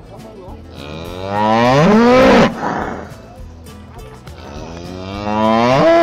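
Cattle mooing: two long, loud moos, each rising in pitch. The first swells for about two seconds and breaks off sharply; the second builds up toward the end.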